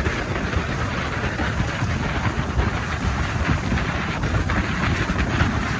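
Motorboat running at speed over choppy water, with wind buffeting the microphone: a steady, dense rush over a low rumble.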